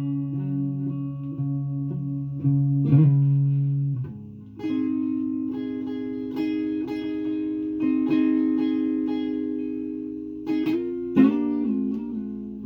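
Solo guitar played freely: picked notes and chords left to ring out for several seconds each, with a quick run of notes about eleven seconds in.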